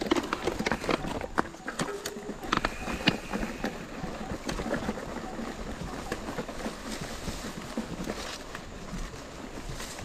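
Mountain bike moving over a rough trail: irregular clicks, knocks and rattles over a steady rustling noise.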